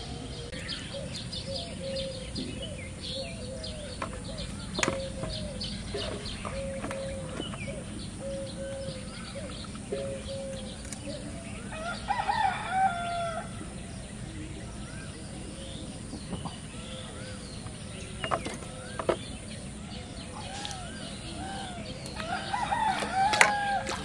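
A rooster crowing twice, about halfway through and again near the end, over a string of short, evenly spaced chicken calls early on. A few sharp knocks come in between.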